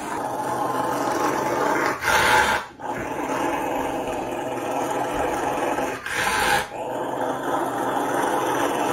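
Rottweiler growling and grumbling in long, nearly unbroken stretches, breaking off briefly about three seconds in and again near seven seconds, each break just after a louder swell. It is a vocal protest at being groomed, not aggression: the dog is not resisting, just saying it finds this unpleasant.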